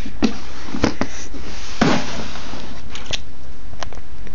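Irregular plastic clicks and knocks as the lid of a plastic storage tub is handled, over a steady rustling noise; the loudest knock comes a little under two seconds in.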